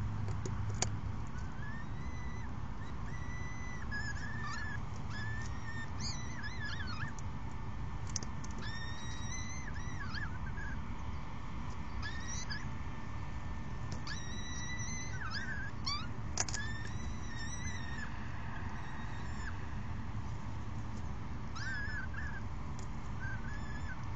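Peregrine falcon chicks calling while an adult feeds them: a long run of short, thin, arched calls, about one a second, over a steady low rumble, with a few sharp clicks.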